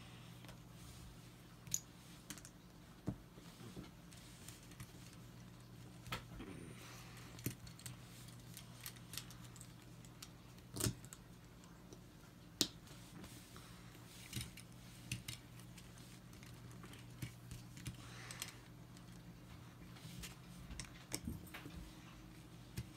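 Plastic LEGO bricks clicking and clacking at irregular intervals as they are picked up off a table and pressed together, over a steady low hum.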